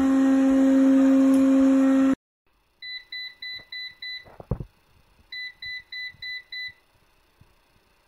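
Robot vacuum running with a steady high hum that cuts off abruptly about two seconds in. Then two runs of short electronic beeps, six and then five, about four a second, with a single thump between them.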